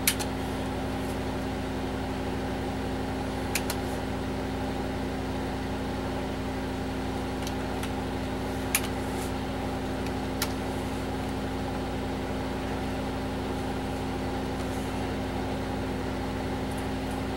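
Steady hum of a running 486 desktop computer with its case open, its fans and drives giving a few fixed tones. Four single sharp clicks of keyboard keys being pressed break in, one right at the start, then a few seconds apart.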